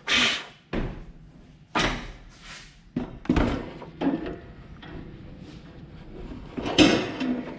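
A new lawn tractor battery being fitted into its compartment: a series of about six hard clunks and knocks as it is set and shifted into place, the loudest near the end.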